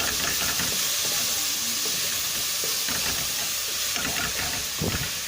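Meat and tomatoes frying in a pan with a steady sizzling hiss, broken by a few short scrapes or knocks near the start and near the end.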